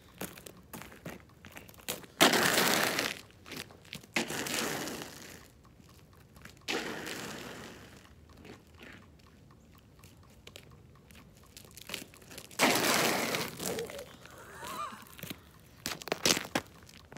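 Shoes crunching and scraping on an ice-glazed driveway: four scrapes about a second long, with short crunching steps and clicks between them.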